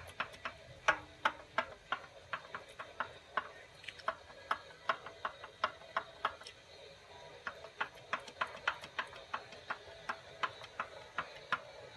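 Sharp metallic clicks, a few a second in an uneven rhythm with a short pause midway, from a Honda CR-V oil pump being rocked by hand. The loose shaft knocks in its worn bearings, which the owner finds have spun in the pump.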